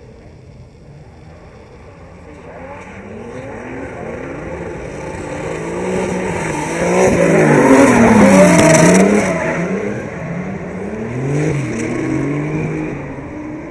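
Drift car approaching and sliding past, its engine revs rising and falling over and over as the throttle is worked. It is loudest a little past halfway, with tyre noise over the engine, then fades with one more burst of revs near the end.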